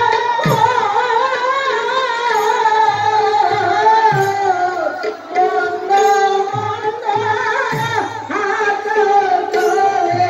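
Live Manipuri Raas Leela music: singing in long held, wavering notes over drum strokes.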